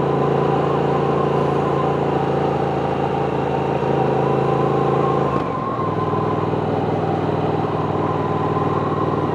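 Triumph Speed Twin's parallel-twin engine running steadily under way. About five seconds in the engine note briefly breaks and drops, then carries on at a different pitch.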